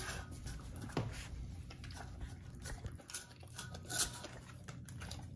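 English bull terrier eating from a stainless-steel bowl: irregular small clicks and chewing noises as her mouth works at the food and knocks against the metal.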